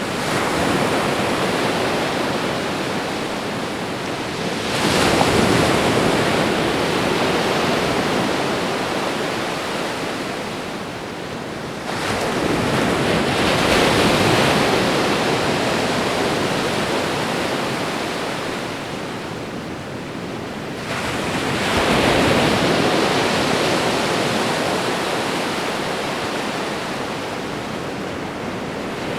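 Ocean waves washing onto a shore: a constant rush of surf with three waves surging in, each swelling quickly and then slowly fading as it draws back.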